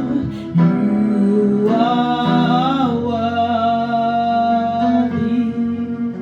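Gospel worship music: a voice singing long held notes over steady instrumental accompaniment.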